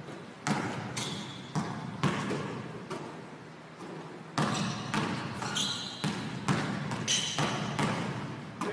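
Basketball bouncing, being passed and caught, and shot on a hardwood gym court: sharp thuds about every half second to a second, each echoing in the large hall, with a few brief high squeaks near the middle.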